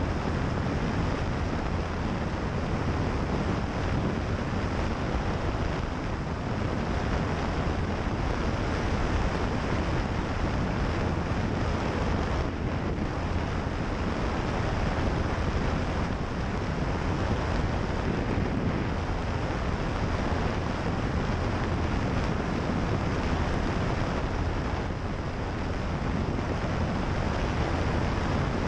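Steady drone of a single-engine propeller airplane in flight, a low engine and propeller hum under wind rushing over the outside-mounted microphone.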